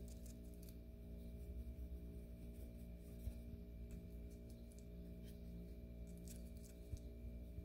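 A quiet, steady drone of several held low tones, like a singing bowl or meditative ambient music, with a few faint soft ticks, likely from a paintbrush against the watercolour palette and paper.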